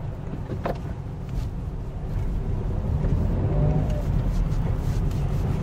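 Citroën C1 engine heard from inside the cabin, pulling away in first gear, its low hum getting gradually louder as it gains speed.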